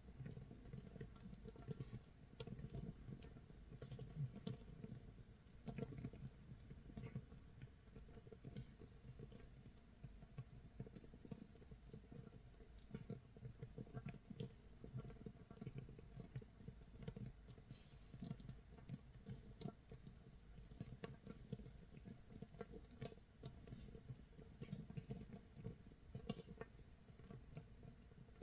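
Makgeolli starter (mitsul) fermenting in a jar, about 24 hours in: a faint, dense, irregular crackle of tiny bubbles popping, which the brewer likens to rain, scorched rice crust sizzling or firewood burning.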